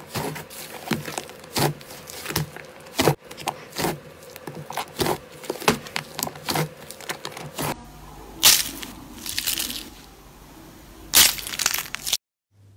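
Hands pressing and kneading a large mass of thick yellow fluffy slime, with rapid crackles and pops of trapped air bursting. After a cut, pink slime with blue flakes is squeezed in the hand, giving a few louder crackling squishes.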